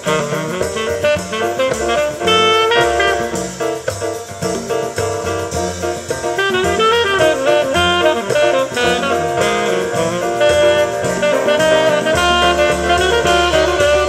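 Small-group jazz recording: tenor saxophone playing a fast-moving line, with piano, double bass and drums behind it.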